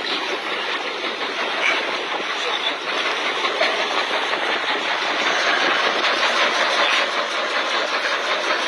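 A fishing boat's engine running steadily, with people's voices over it.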